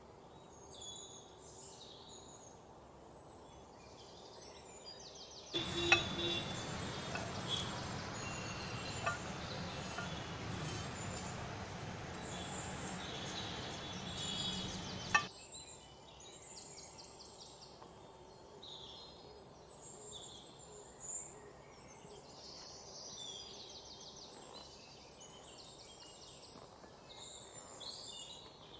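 About five seconds in, a louder dry rustling with a few sharp clinks starts and runs for about ten seconds, then stops abruptly: oats, desiccated coconut and chopped almonds being scraped with a spatula from one bowl into a glass bowl. Before and after it, faint bird chirps in the background.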